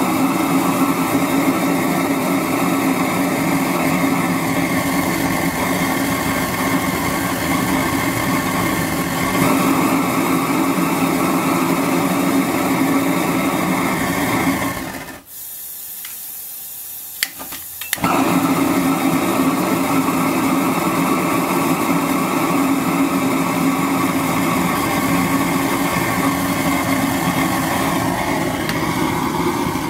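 Homemade single-jet propane burner running with a steady rushing flame noise. About halfway through the gas is turned at the ball valve and the noise drops away for about three seconds, then comes back at full strength.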